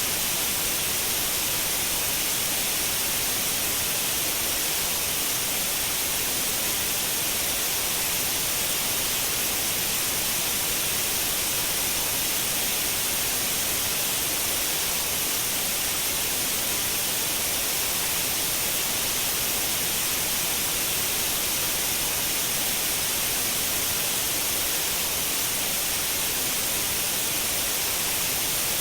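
Continuous white noise: a steady, unchanging hiss, strongest in the upper frequencies.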